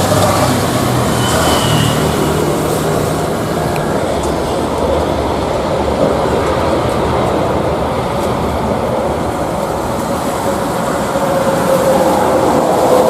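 Jet airliner engines running at high power: a loud, steady rushing roar with a faint tone that drifts slowly in pitch.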